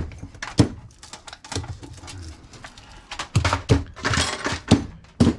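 Scrap metal parts knocking and clattering as electronic scrap is handled and broken down: about eight sharp knocks at uneven intervals, with a short scrape about four seconds in.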